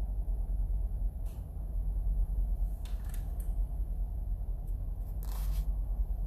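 Steady low hum of room tone, with a few soft rustles and clicks about one, three and five seconds in, the last one the longest.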